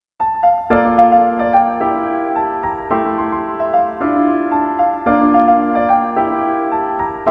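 Piano playing slow, sustained chords, moving to a new chord about once a second, starting just after the opening.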